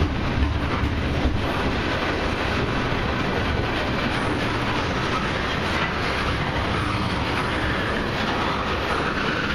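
Freight train's tank cars rolling past, a steady rumble of steel wheels on the rails with some clicking as the wheels pass over the track.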